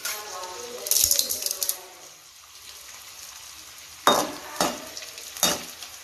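Pieces of edible gum (gond) sizzling and crackling in hot ghee in a kadai, with a steady sizzle throughout. Near the end a perforated metal skimmer knocks against the pan three times as the gum is stirred.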